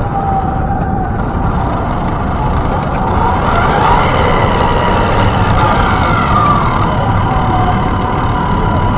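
Busy city street traffic noise, with a siren wailing, rising and falling in pitch, through the middle.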